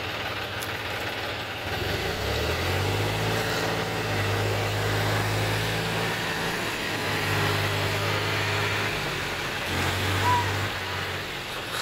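John Deere tractor's diesel engine revving under load in three spells of a few seconds, with short dips between them, as a tractor works a loaded trolley stuck in deep mud. A brief high chirp sounds about ten seconds in.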